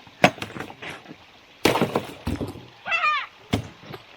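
Ice being struck and breaking: a series of sharp cracks and smashes, with a short high-pitched yelp about three seconds in.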